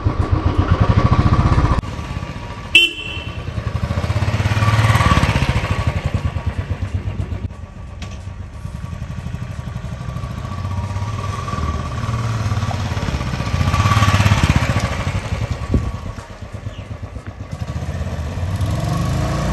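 Royal Enfield Classic 350's single-cylinder engine running under way with its low, pulsing exhaust beat. It swells twice as the bike accelerates and eases off in between. A short horn toot comes about three seconds in.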